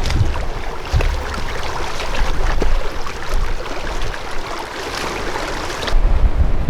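Storm wind gusting across the microphone in low rumbling swells, with scattered faint ticks.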